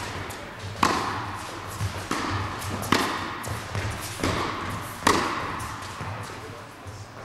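Tennis rally: five sharp pops from racket strikes and ball bounces, about one every second, each echoing in an indoor tennis hall.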